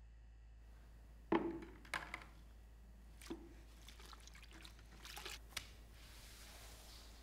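Wet string mop in a plastic bucket with a wringer basket: water sloshing and dripping, with several knocks of the mop against the bucket, the loudest about a second in. A soft wet swish follows near the end.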